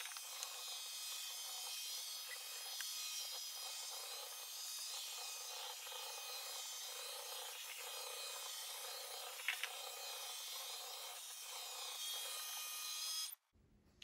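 Shark AI VacMop robot vacuum running as it drives across a hardwood floor to its dock: a steady whirring hiss with a faint click about nine and a half seconds in. It cuts off suddenly shortly before the end.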